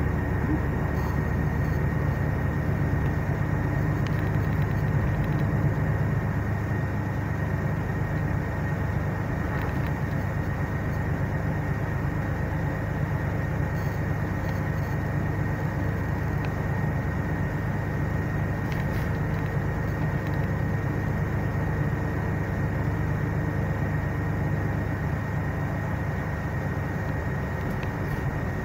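Cabin of a Mercedes-Benz Citaro C2 G articulated city bus while the bus runs: a steady low rumble with a thin, steady high whine over it.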